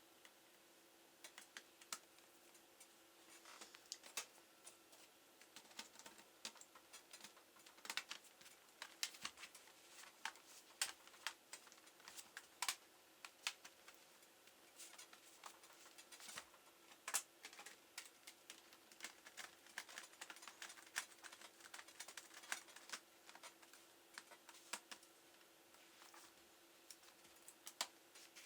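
Faint, irregular light clicks and taps from hands working on a laptop, over a faint steady hum.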